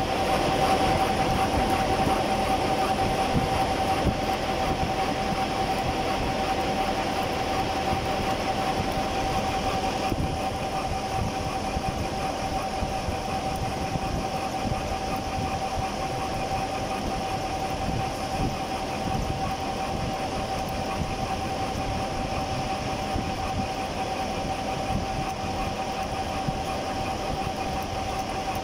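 Conventional milling machine face-milling a metal block at a slow feed rate: the cutter running through the cut with a steady whine over rough machining noise, growing slightly quieter about ten seconds in.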